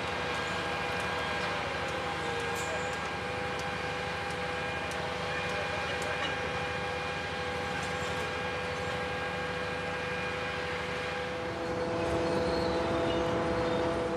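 Railway crane's engine running steadily, with constant whining tones over a low hum; a few faint clicks about a third of the way in, and the sound grows louder with an added lower tone near the end.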